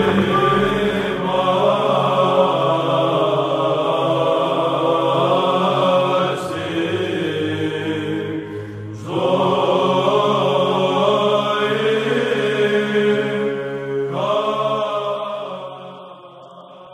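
Orthodox liturgical chant, several voices holding long sustained notes together. It dips briefly about nine seconds in, resumes, and fades out near the end.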